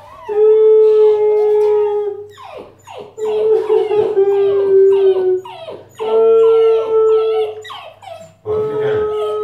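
A puppy whimpering and howling along with a man's mock crying: four long, drawn-out steady wails, with the puppy's quick high cries falling in pitch in between.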